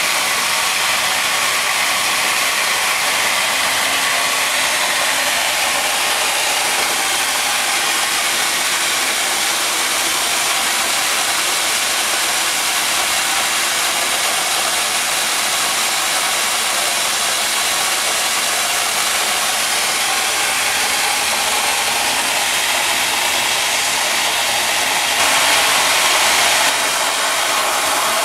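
A pressure washer runs with its lance jetting water into a plastic drum partly full of water, making a steady rushing hiss as it churns the water. The hiss is briefly louder near the end.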